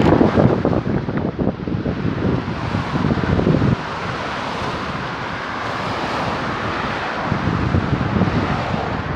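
Wind buffeting the microphone outdoors, gusty and uneven for the first few seconds, then settling to a steadier rush after about three and a half seconds.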